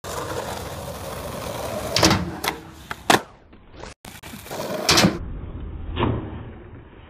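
Skateboard wheels rolling on concrete, then several sharp clacks and slaps as the board and the falling skater hit the ground. After a break, two more sharp clacks of board pops and landings.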